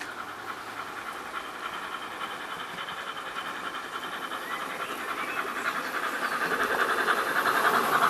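DCC sound decoder in an O gauge model LNER A4 Pacific playing fast steam exhaust beats, with hiss, as the locomotive runs at speed along the track. The sound grows steadily louder as the train comes closer.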